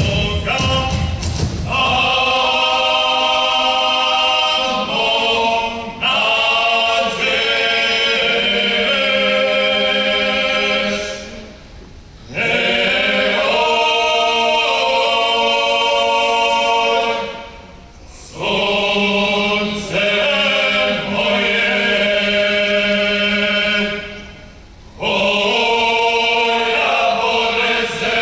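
A group of folk singers, mostly women, sings unaccompanied in long, held phrases, with several voices sustaining notes together. The singing pauses for breath three times. A dance tune with stamping feet is just ending in the first two seconds.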